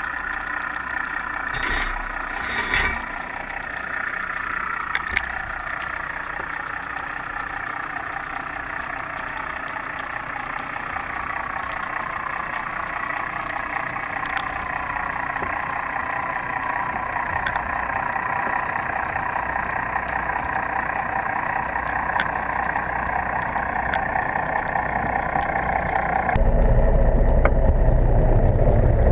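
Steady mechanical hum from the research boat's machinery, heard underwater through a GoPro housing on a CTD as it is hauled up, its tones drifting slowly. A few sharp knocks in the first five seconds as the frame bumps the rocky bottom; about 26 seconds in the sound changes suddenly to a louder, deeper rumble.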